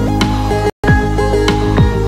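Background electronic music with a steady beat over sustained synth notes, briefly cutting out to silence for an instant a little under a second in.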